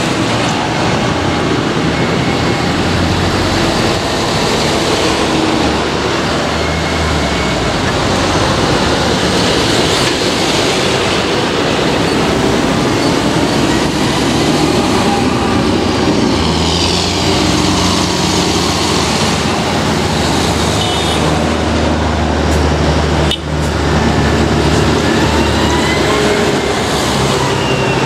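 Heavy diesel traffic driving past close by: big modern farm tractors with a double-decker bus and cars, engines running with steady deep drone and continuous tyre noise. A high whine sweeps in pitch partway through.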